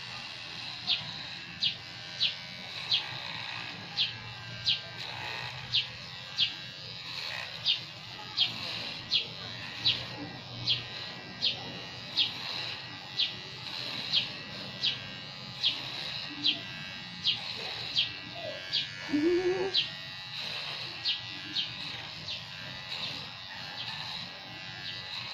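Electric hair clipper buzzing steadily as it is run over the head, with a sharp high chirp repeating about every 0.7 seconds over it. A brief rising call sounds about three-quarters of the way through.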